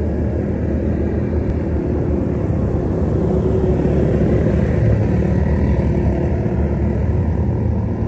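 Quad bike (ATV) engines running as several riders drive around a sand track, a steady drone that grows a little louder about halfway through as two quads pass close by.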